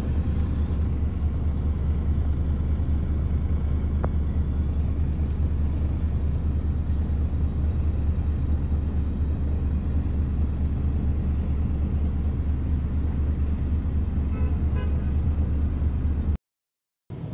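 Steady low rumble of a vehicle, heard from inside it. It cuts off abruptly near the end.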